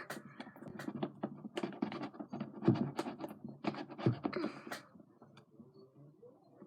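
Stirring glue and baking soda in a bowl: irregular scraping and clicking of the utensil against the bowl, which eases off about five seconds in.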